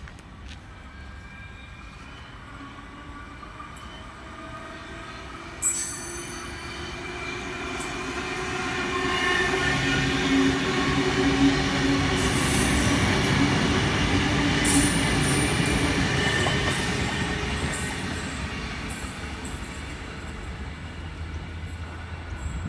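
Sydney Trains C-set double-deck electric passenger train passing through a station without stopping. It grows louder to a peak about halfway and fades as it runs off, with a whine over the wheel rumble and a sharp crack about six seconds in.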